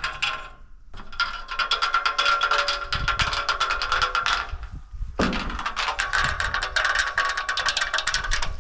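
Ratchet wrench working bolts with rapid clicking and a metallic ring, in two long runs separated by a brief pause about four and a half seconds in.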